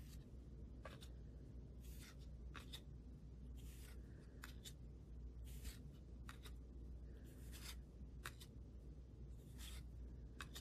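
Upper Deck hockey trading cards being flipped through by hand, each card slid off the stack with a short, faint papery swish, about one a second, over a low steady hum.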